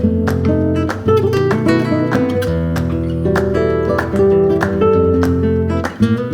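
Background music: acoustic guitar strummed in a flamenco-like style, with plucked notes over a steady rhythm.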